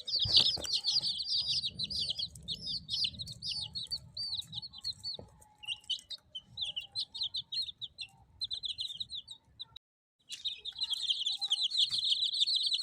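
A group of chicks peeping: rapid, high, down-slurred peeps overlapping one another. The peeping stops briefly about ten seconds in, then resumes more densely.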